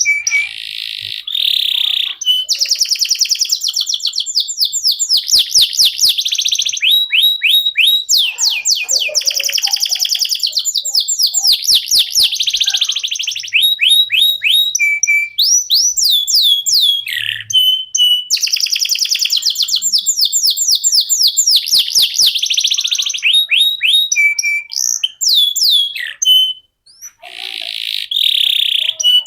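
Domestic canary singing a long, nearly unbroken song of fast trills and rolled phrases, each phrase a quick run of repeated notes, with one short pause near the end.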